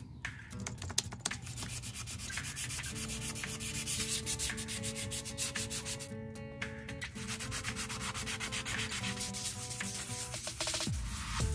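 Hand sanding of a steel sledgehammer head with 500-grit sandpaper: quick, repeated back-and-forth rubbing strokes of abrasive paper on metal.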